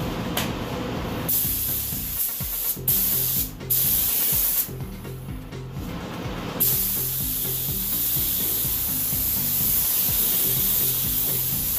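Gravity-feed paint spray gun hissing as it lays clear coat on a car hood. The trigger opens about a second in for a pass of about three seconds with brief breaks, stops for about two seconds, then holds a long steady pass.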